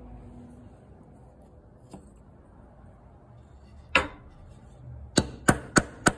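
A hammer tapping nails through a thin tin strip into a wooden block. There is one sharp tap about four seconds in, then four quick light taps, about three a second, near the end.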